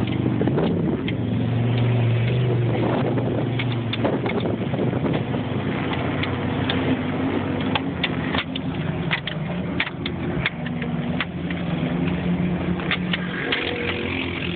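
Vehicle engine running and changing pitch as it drives over sand dunes, heard from inside the cab, with frequent rattles and knocks from the bumpy ride.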